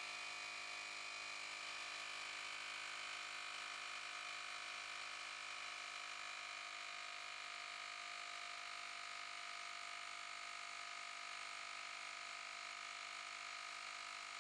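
JM-8817 cordless handheld tire inflator running steadily while pumping up a car tire, heard as a faint, even hum with a high whine.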